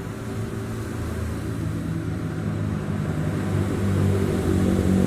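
An engine running steadily, growing gradually louder as it draws nearer.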